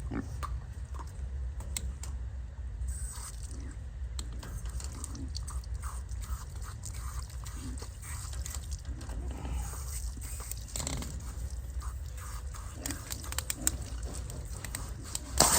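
Pigs biting and working a livestock water nipple, a scatter of irregular clicks, snaps and pops with chewing. Just before the end a sudden loud hiss of water spraying from the pressurized line begins.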